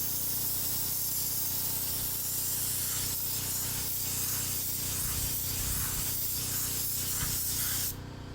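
Paint spray gun hissing steadily as it sprays clear coat, then cutting off abruptly near the end.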